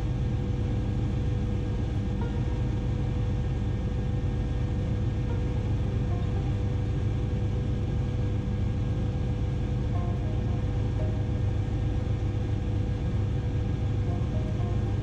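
Bell 407 helicopter in flight: a steady low drone with a steady higher tone running over it.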